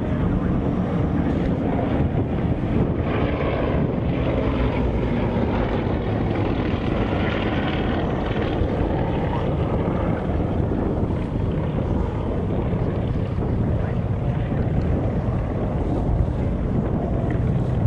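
A display aircraft flying past, its engine tone faintly rising and falling, under heavy wind buffeting on the microphone.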